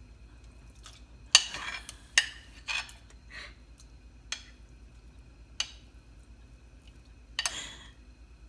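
Metal spoon clinking and scraping against a china plate as raw chicken breasts are pushed off it into a pot of water: a series of sharp clinks, some with short splashes as pieces drop in.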